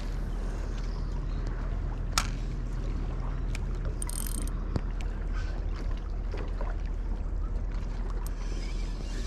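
Steady wind rumble on the microphone with water at a rocky shore, broken by a few light clicks from a spinning reel and rod being handled, the sharpest about two seconds in, and a brief whirr of the reel about four seconds in.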